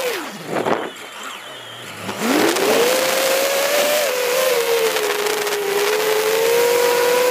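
FPV quadcopter's brushless motors whining. The pitch drops sharply as the throttle is cut, leaving about two quieter seconds, then the whine climbs back up and holds fairly steady.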